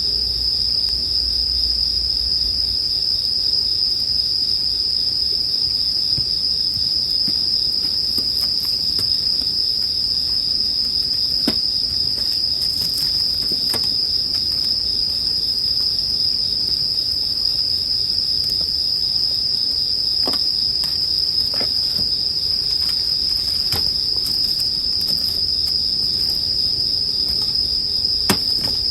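Bell crickets (suzumushi) chirping in a steady, unbroken high chorus, with a campfire's occasional faint crackles and pops scattered through it.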